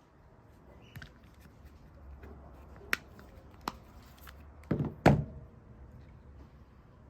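A few separate sharp clicks and knocks, the loudest a close pair of thumps about five seconds in.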